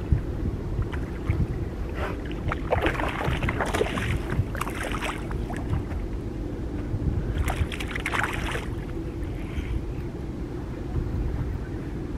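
Steady low wash of water and wind around a small boat, with two spells of rough splashy noise, about two seconds in and again near eight seconds in, while a hooked bass is played at the surface beside the boat.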